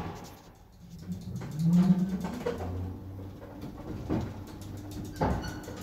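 Early-1940s Stigler elevator (modernized 2002) starting down: a low hum swells about two seconds in as the car gets under way, then the drive runs with a steady drone. Two sharp knocks come near the end.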